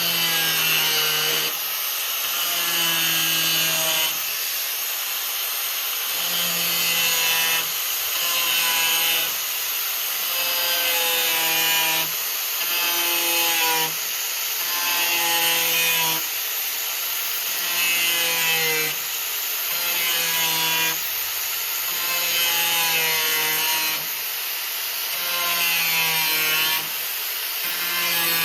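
Steel tube being sawn by hand in slow, even back-and-forth strokes, about one every two seconds, each stroke a rasp with a metallic ring.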